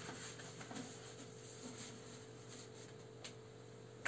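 Faint, steady hum of a running desktop PC's fans and power supply during its BIOS boot, with a few faint ticks and rustles and a sharper click at the very end.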